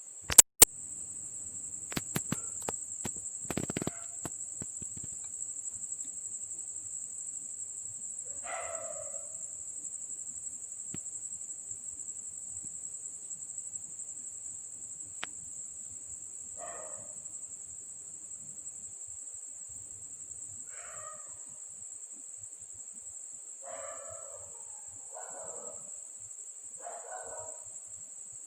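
Steady high-pitched chirring of crickets, an unbroken insect chorus. Two sharp loud clicks come just after the start and a scatter of fainter clicks about two to four seconds in, and short bird calls break in half a dozen times, more often near the end.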